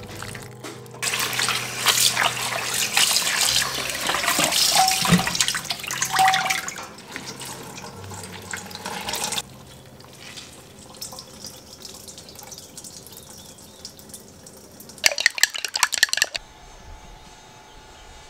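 Water gushing into a stainless steel colander in a kitchen sink for about eight seconds, then much quieter. About fifteen seconds in there is a second-long burst of rapid clicking.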